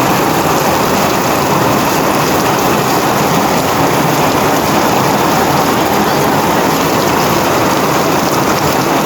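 Heavy rain falling in a loud, steady, even hiss.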